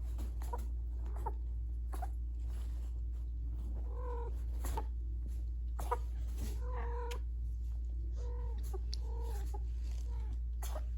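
A kitten coughing in short bouts of quick, pitched hacks, about four, seven and nine seconds in, with a few clicks in between. A steady low hum runs underneath.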